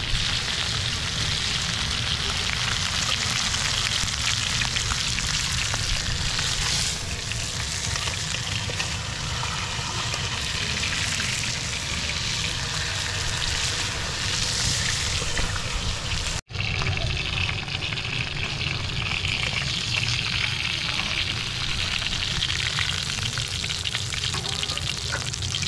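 Chicken pieces sizzling in hot oil in a frying pan over a wood fire, with a steady hiss and a low rumble underneath. The sound cuts out for an instant about two-thirds through, then the sizzling carries on.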